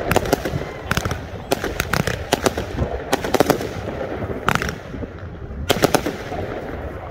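Fireworks going off: clusters of rapid, sharp crackling pops coming every second or so, over a steady low rumble.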